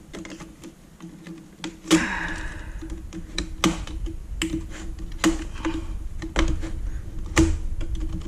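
Irregular clicks and taps of a small prying tool against the plastic housing and circuit board of a Siemens Simatic touch panel, with a short scraping rasp about two seconds in, as its plastic latch clips are worked loose.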